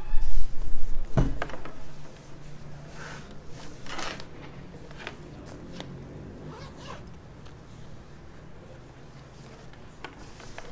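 Handling noise close to a microphone: a few heavy low thumps and a sharp knock in the first two seconds, then faint scattered rustling, scraping and small clicks.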